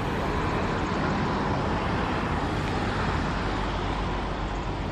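Steady road traffic noise: a vehicle's tyres and engine on the road, swelling slightly in the middle.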